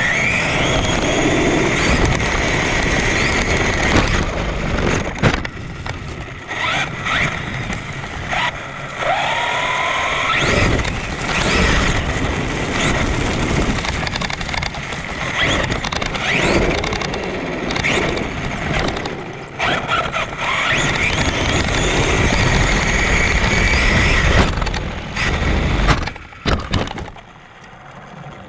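Onboard sound of a Traxxas Sledge RC monster truck running on a 6S LiPo battery: a high electric-motor whine that rises and falls with the throttle, over tyre and chassis noise, with several sharp knocks from bumps and landings. It drops away near the end.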